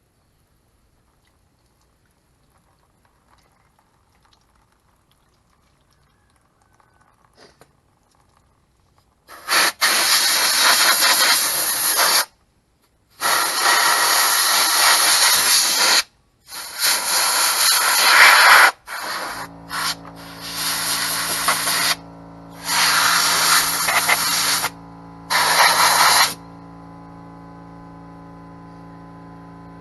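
Bursts of pressurised spray hissing loudly while a drum brake assembly is cleaned, six or seven blasts of one to three seconds each, starting about nine seconds in. About halfway through a steady, even-pitched machine hum comes in and runs under the later blasts.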